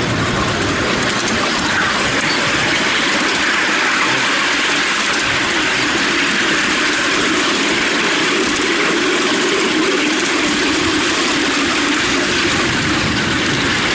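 Ride-on miniature train hauled by a BR class 37 replica locomotive running steadily along the track, its wheels rolling on the rails with a continuous rumble.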